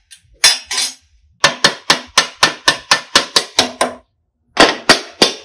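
A hammer tapping steel plates, each strike ringing: two blows, then a fast run of about a dozen at roughly four a second, a short pause, and another run. The taps knock the magnet-held plates into line to square them before tack welding.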